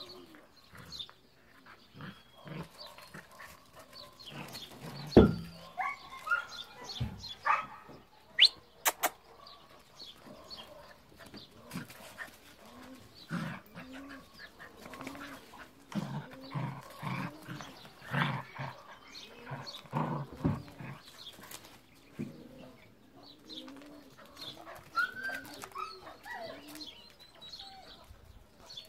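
Puppies play-fighting, with many short growls and yips and a few higher whines. There is a sharp knock about five seconds in.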